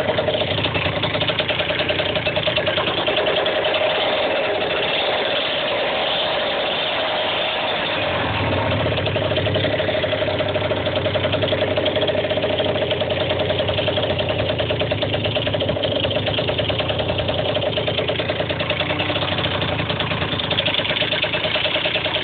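Scooter engine idling steadily through an aftermarket exhaust with a red silencer, heard close to the pipe as a rapid, even pulsing.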